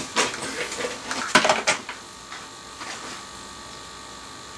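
Model locomotives and their boxes being handled: a few knocks and rustles in the first two seconds, the loudest a cluster of clicks about a second and a half in, then only a faint steady hum.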